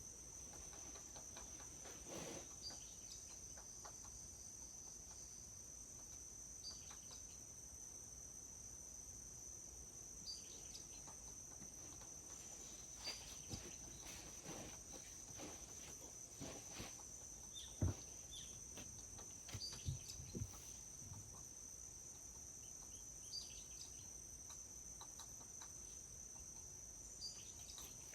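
Steady insect chorus, a continuous high trill, in a forest ambience, with occasional short high chirps and a few soft low knocks, the loudest a little over halfway through.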